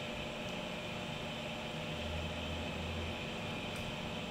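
Steady background hum and hiss of room noise, with a slightly louder low hum a little after two seconds in; no distinct eating sounds stand out.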